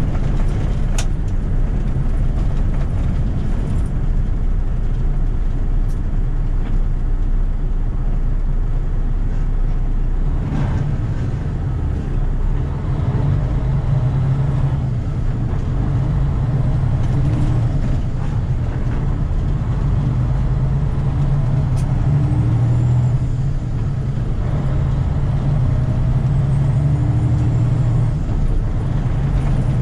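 Delivery truck engine running steadily with a constant low drone.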